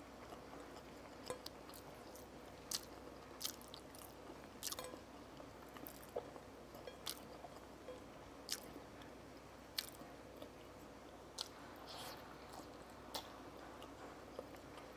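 Faint chewing of rice with fried egg and tofu, with short wet mouth clicks roughly once a second.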